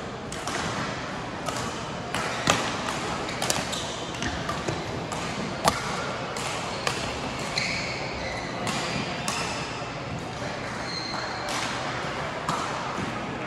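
Badminton rackets hitting a shuttlecock during a rally: sharp cracks at irregular intervals, loudest about two and a half and five and a half seconds in. A few short squeaks of shoes on the court floor come in the second half, over the steady background noise of a large hall.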